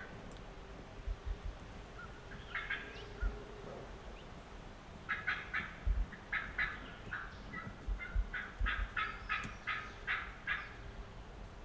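Wild turkey calling: a short burst of sharp notes a couple of seconds in, then a long run of sharp yelping notes, about four a second, for some five seconds.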